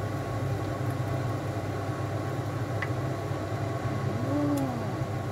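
Kitchen exhaust fan running with a steady low hum over a wok of mung bean stew boiling as a wooden spatula stirs it, with light scrapes of the spatula. About four seconds in there is a short tone that rises and then falls.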